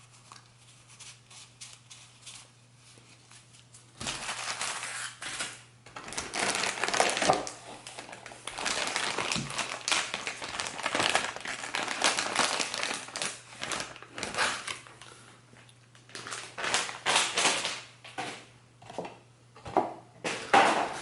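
Packaging crinkling and crumpling under the hands as a puzzle is unwrapped. After a few quiet seconds with faint ticks, the rustling starts about four seconds in and goes on in uneven spells, with a short pause about two-thirds of the way through.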